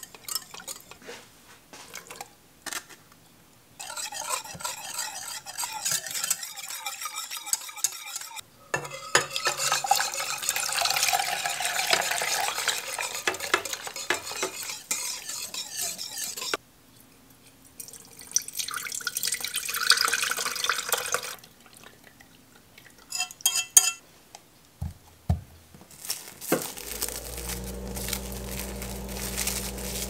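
A spoon stirring and scraping in a dish in several spells, with a few clinks, likely dissolving gelatin into a coconut jelly mixture. Near the end a steady low hum starts.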